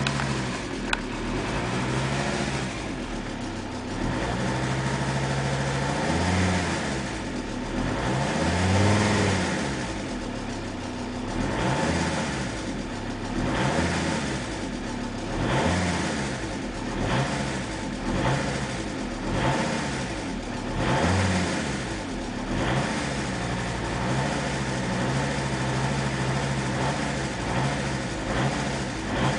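Audi A6's 2.5 TDI five-cylinder diesel idling, then revved up and back down many times in a row before settling back to idle. The engine carries a ticking noise that came from the inlet valves touching the pistons: a sheared key on the crankshaft timing-belt sprocket had let the cam run 6–8 degrees advanced.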